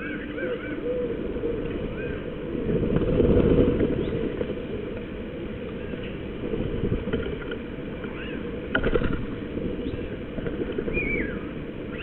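Scattered bird calls, short arched chirps and a falling call about eleven seconds in, over a steady low rumble that swells about three seconds in. A sharp knock near nine seconds.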